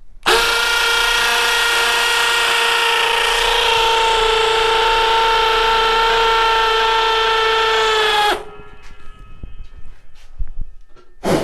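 Milwaukee M18 Fuel cordless hammer drill boring into concrete, running at a steady pitch for about eight seconds, then stopping abruptly. A brief second burst comes near the end.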